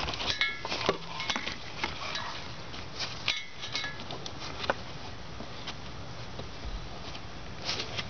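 Scattered light clicks and rustles from gloved hands handling a plastic electrical wiring connector and the cables around it, with a couple of brief squeaks.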